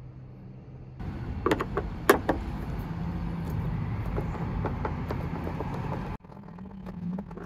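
Sharp clicks and small ticks of a screwdriver working the screws of a car's rear-seat grab handle, over a steady rumbling background. The two clicks a second or so in are the loudest. The background drops off suddenly near the end.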